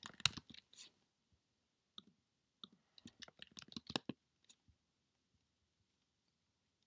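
Computer keyboard keys being typed: a few clicks in the first second, two single taps, then a quick run of keystrokes around three to four seconds in.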